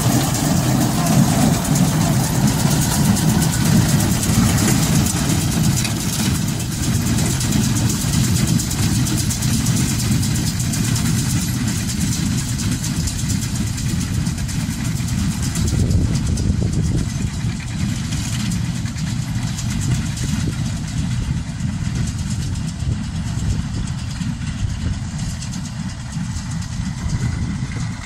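An engine running steadily at a constant speed: a low rumble with a hiss over it.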